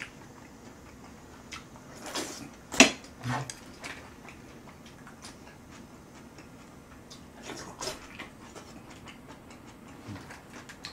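A person eating close to the microphone: scattered short smacks and clicks of chewing and of chopsticks against bowls, with one sharper click about three seconds in.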